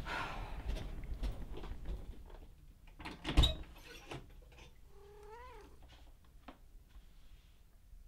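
Bedding rustles, then a single dull knock a little over three seconds in, followed by a domestic cat meowing once, one call that rises and then falls in pitch, lasting under a second.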